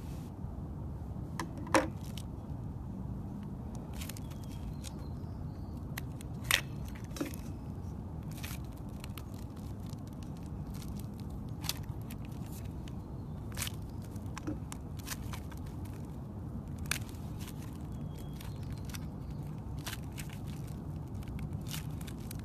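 Slime being squeezed by hand as the balloon skin around it is torn and peeled off: scattered sharp crackles and snaps, the loudest about two seconds and six and a half seconds in, over a steady low rumble.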